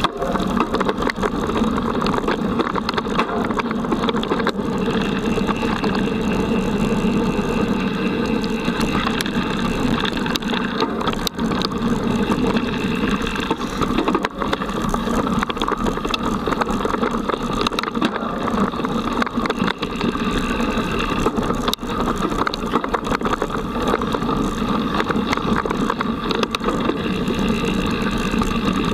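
Mountain bike ridden fast over a dirt forest trail, heard from a camera on the bike: a continuous rumble of tyres and frame with frequent small rattles and clicks.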